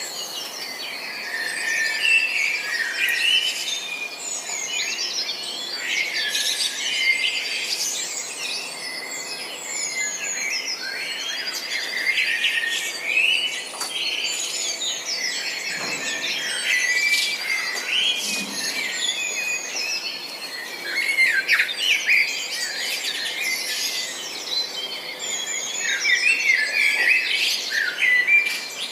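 Several songbirds chirping and trilling together in a busy, overlapping chorus of short high calls.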